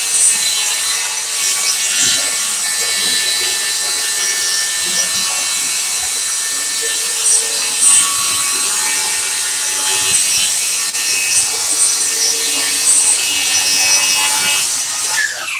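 Cordless DeWalt FlexVolt circular saw running steadily as it rips lengthwise through a solid MDF door. Near the end the saw stops, its pitch falling away as the motor spins down.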